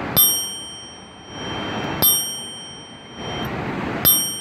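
Citi Bike bicycle bell rung slowly: three single dings about two seconds apart, each ringing out with several high tones and fading before the next.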